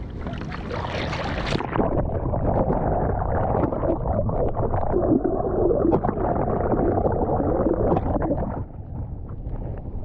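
Waves washing over a low-mounted action camera on a kayak. Splashing for the first second and a half, then the camera goes under and the water sounds muffled, gurgling and rumbling, until it comes up again near the end.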